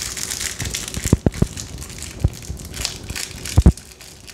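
Crinkling, crackling handling noise, with three soft low thumps about a second in and two more about three and a half seconds in.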